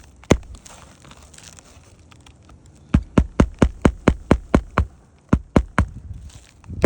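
A single sharp knock, then a quick, even run of about a dozen sharp knocks at roughly four a second.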